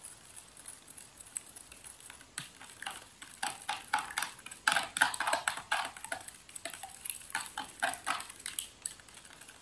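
A metal spoon beats raw eggs in a plastic bowl, with quick clicking taps and scrapes against the bowl. The taps are sparse at first and come thick and fast from a couple of seconds in.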